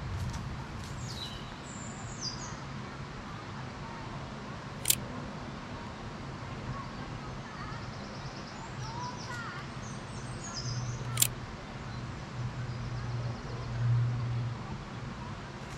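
Outdoor ambience with birds chirping and calling, over a steady low hum that swells near the end. Two single sharp clicks stand out, about six seconds apart, in keeping with a DSLR camera's shutter.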